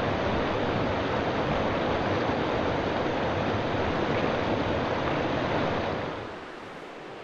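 Steady rush of river water. It drops to a much quieter hiss about six seconds in.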